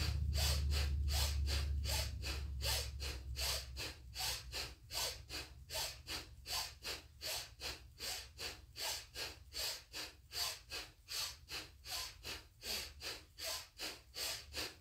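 Forceful, rapid breathing through the nose in a quick, even rhythm, a sharp inhale as the arms go up and a sharp exhale as they pull down, in a fast yogic breathing exercise. A low rumble under the breaths fades out over the first couple of seconds.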